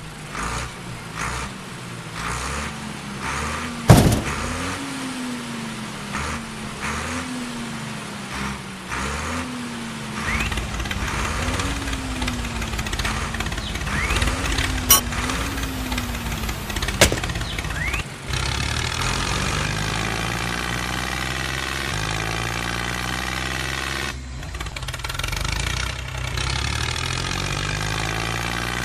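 A tractor engine running under load, its pitch wobbling up and down through the first half, then settling into a steady, fuller drone about two-thirds of the way through. A sharp click about four seconds in is the loudest sound, with two smaller clicks later.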